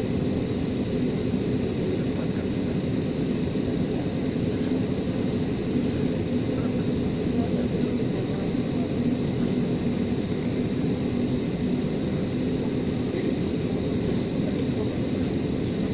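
Cabin noise of an Airbus A320neo with CFM LEAP-1A turbofan engines at low taxi power, heard from inside the cabin: a steady hum with a faint high whine that doesn't change.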